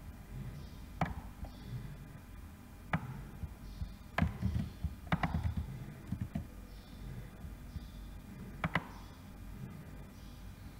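Computer mouse and keyboard clicks: about five sharp, separate clicks a second or two apart, with soft low thuds of desk handling around the middle, as text is copied, pasted and posted.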